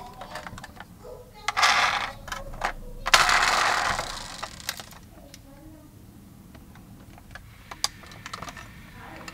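Small clicks and rattles of a die-cast toy container truck's plastic and metal parts as it is turned over in the hands. Two longer hissing noises come about one and a half and three seconds in, the second the louder and lasting over a second and a half.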